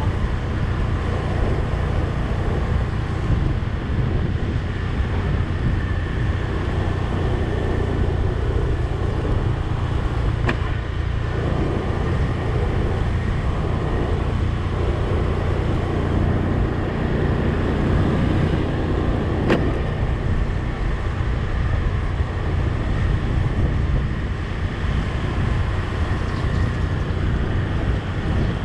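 Steady low rumble of a vehicle's engine and road noise while driving along a street, with two faint ticks, one about ten seconds in and one near the twenty-second mark.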